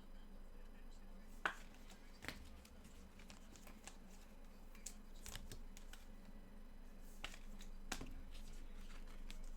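Faint, scattered clicks and taps of small objects being handled on a table, over a low steady hum; the sharpest click comes about a second and a half in.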